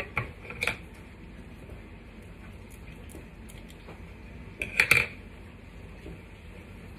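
Two small clicks near the start, then a louder cluster of sharp snips about five seconds in: scissors cutting ribbon.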